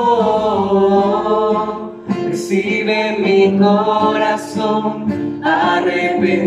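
A man and a woman singing a Spanish worship song together in long held notes, accompanied by an acoustic guitar; the word "corazón" is sung near the end.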